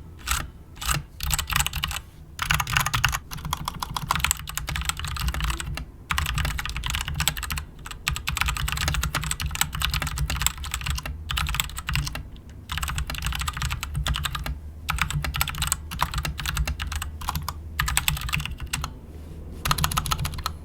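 Typing on a Royal Kludge RK61 60% mechanical keyboard with tactile switches and double-shot ABS keycaps: a quite loud, fast clatter of keystrokes in runs with short pauses, with a ping from the plastic case.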